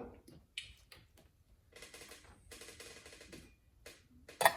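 Small metal parts being handled: bolts and muffler-cover hardware clinking and rattling, with a few sharp clicks, some rustling as parts are sorted, and a louder clatter near the end.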